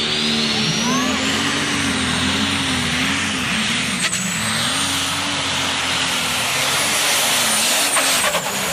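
Turbocharged diesel engine of a John Deere pulling tractor at full throttle under load on the pull track, its note wavering up and down. A high turbo whistle climbs over the first second or so and then holds.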